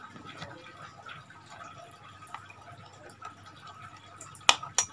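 A plastic modem-router being handled: faint small taps and rubbing, then two sharp plastic clicks in quick succession near the end.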